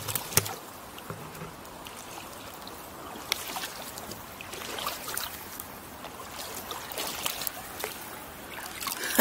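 Shallow river water sloshing and trickling around wading boots, with a few sharp clicks. Near the end a hand dips into the water.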